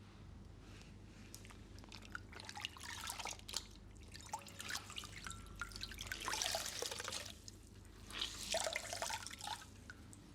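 Wet crackling and dripping sounds in three bursts, about two, six and eight seconds in.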